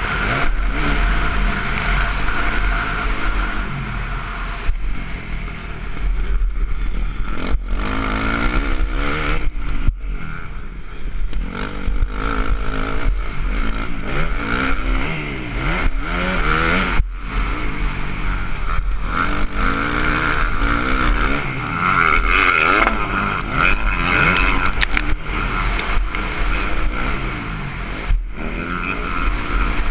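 Motocross dirt bike engine under hard throttle, heard from onboard: its pitch rises and falls repeatedly as the rider accelerates, shifts and backs off, with the engine note cutting out briefly a few times.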